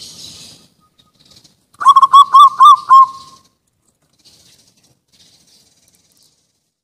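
Zebra dove (perkutut) singing: a quick run of about seven short coo notes, the last one drawn out. A brief faint rustle comes just before.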